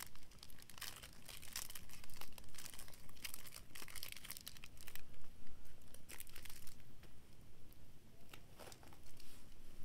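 Snack-bar wrapper being torn open and crinkled in the hands: busy crackling through the first four or five seconds, then only occasional crinkles.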